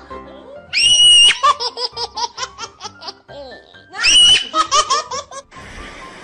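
High-pitched laughter: a held squeal followed by a quick run of giggles, heard twice.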